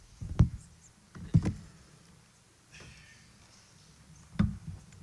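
Handheld microphone being handled: a few knocks and rubbing thumps, about half a second in, around a second and a half, and again near the end, with a faint rustle in between.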